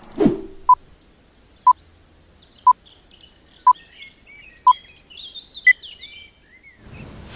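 Countdown beeps from an animated intro: a short beep once a second, six times, the last one higher in pitch. A falling whoosh comes just after the start, cartoon bird chirps from about three seconds in, and a rush of noise near the end.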